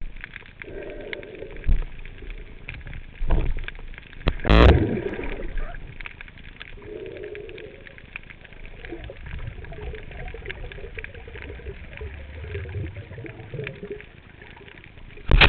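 Underwater ambience picked up by a camera in a waterproof housing: a steady crackling hiss with a few dull knocks, the loudest about four and a half seconds in, and some low muffled sounds in between.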